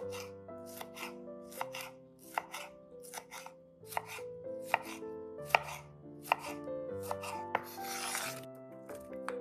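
Chef's knife dicing tomatoes on a bamboo cutting board: a crisp chop of the blade on the board about once a second. Near the end the blade scrapes across the board, sweeping the diced tomato together.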